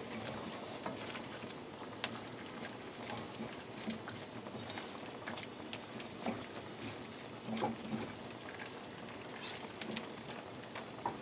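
Pork medallions and peach slices simmering in a peach brandy jus in a skillet, a steady bubbling sizzle, with the scrape and scattered clicks of a spatula stirring in the pan.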